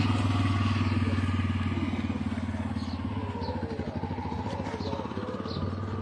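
Auto-rickshaw (tuk-tuk) engine running as it drives past close by and pulls away, its sound fading steadily.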